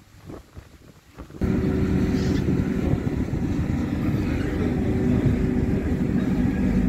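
Wind buffeting the microphone briefly, then about a second and a half in, a loud, steady hum of the ferry's machinery on the open deck, with a constant low tone under the rushing noise.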